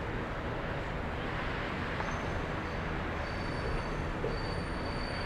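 Heavyweight passenger cars of a Norfolk Southern office car train rolling across a steel girder bridge: a steady rumble, with a thin high wheel squeal joining about two seconds in.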